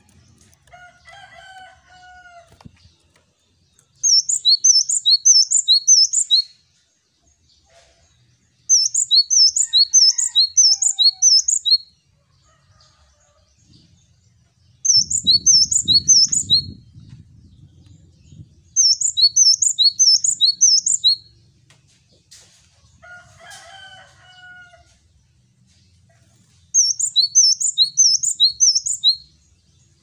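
Male cinereous tit (gelatik batu) singing its 'wucit wucit' song in five bouts, each a quick run of about five high two-note phrases, the first note higher than the second, with pauses of a few seconds between bouts. Fainter calls of other birds come in at the start and again about three-quarters through.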